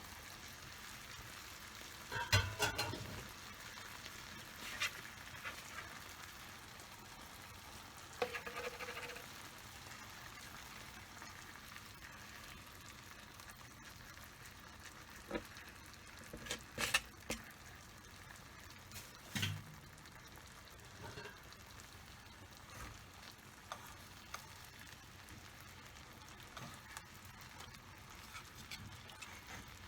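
Chicken thighs frying in a frying pan: a faint, steady sizzle, broken by occasional clacks and short scrapes of a utensil against the pan.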